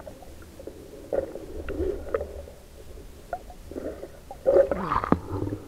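Muffled underwater gurgling and bubbling over a low rumble, with scattered small knocks and a louder flurry ending in a sharp click near the end, heard through a camera held underwater while spearfishing.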